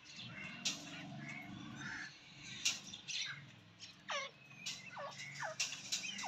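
Grey francolin (teetar) giving several short, soft call notes that slide downward in pitch, mostly in the second half, over a faint low murmur in the first two seconds.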